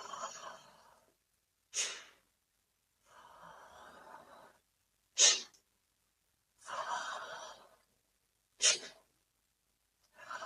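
A person doing a rhythmic yogic breathing exercise. Each breath drawn through the mouth lasts about a second and is followed by a short, sharp, forceful exhale through the nose, like a sneeze. The cycle repeats about every three and a half seconds, with three sharp exhales.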